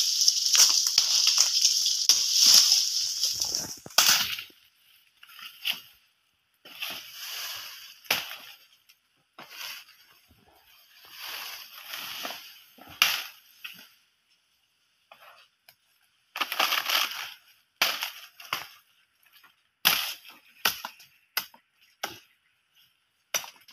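Dry palm fronds and fibre crackling and rustling, loud and dense for about the first four seconds. After that come separate sharp cracks and short rustles as the black fibre (ijuk) is pulled and broken off a sugar palm trunk.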